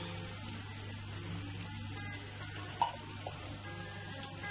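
Spiced onion-tomato masala sizzling steadily as it fries in a non-stick pan, with one short knock about three seconds in.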